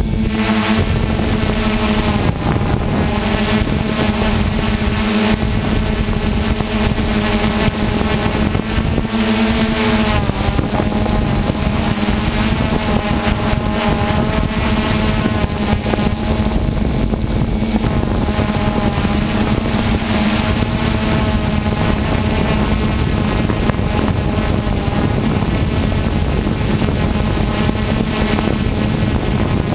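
Hexacopter's six electric motors and propellers running in flight, heard up close from the onboard GoPro HD Hero: a steady multi-tone whirring hum over a rough low rush of air. The tones shift slightly about ten seconds in as the motor speeds change.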